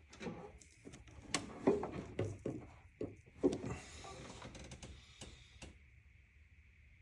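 Irregular knocks, clicks and short rattles of hand tools and parts being handled in a car's engine bay, loudest in the first half.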